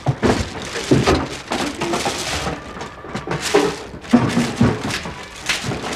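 Shiny gift-wrapping paper crinkling and rustling in irregular crackly bursts as a present is unwrapped by hand.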